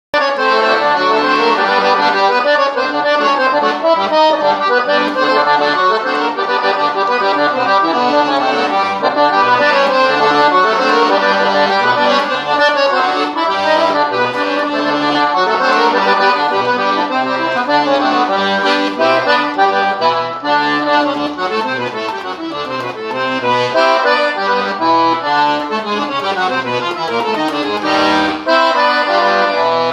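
Accordion playing a traditional tune without a break, with melody notes over lower bass notes.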